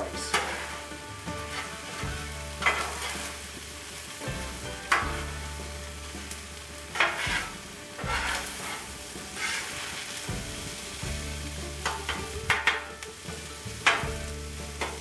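Fried rice with scrambled egg sizzling on a Blackstone flat-top griddle while two metal spatulas chop and scrape through it, the blades clacking against the steel cooktop every second or two.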